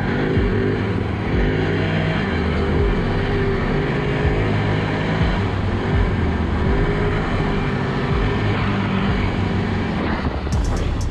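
Can-Am ATV V-twin engine revving up and down as it is ridden, its pitch rising and falling every second or two. A few sharp clicks come near the end.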